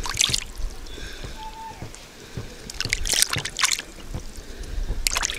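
Hands splashing and rubbing in a plastic basin of water, washing food, in three bursts of splashing: at the start, in the middle and near the end, with quieter trickling between.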